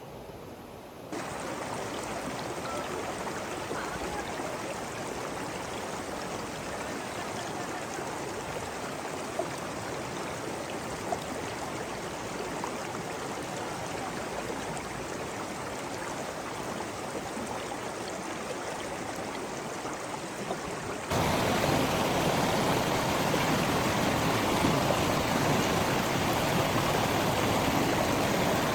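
Steady rushing of running water. It steps up about a second in and gets clearly louder again about two-thirds of the way through.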